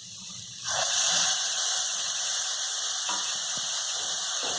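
Tomato puree going into hot oil and fried onion-garlic paste in a kadhai: a loud sizzle starts suddenly about a second in and carries on steadily, with a few faint knocks of stirring.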